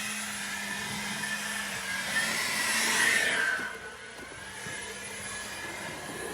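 Ego battery-powered leaf blower running with a steady rushing fan whine. It swells a little about two seconds in, then drops off sharply about three and a half seconds in.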